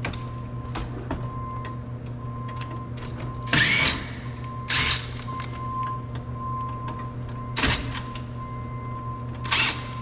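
Plastic door trim being worked loose and pulled off a car door: scattered small clicks and four short scraping rasps, over a steady low hum.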